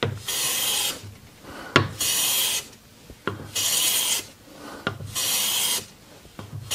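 Hand plane cutting shavings from a board with a freshly sharpened, crowned blade: four hissing strokes about a second and a half apart, each with a light knock between them.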